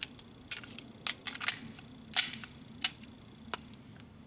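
Sharp metallic clicks and clacks of pistols being handled and set down on a bench after being cleared, about eight at uneven intervals, the loudest about two seconds in.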